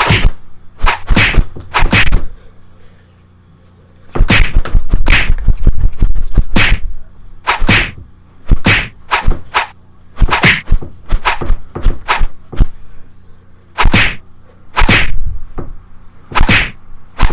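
Funny ringtone made of a rapid string of sharp whack-like sound effects in short clusters, with a pause of about two seconds near the start.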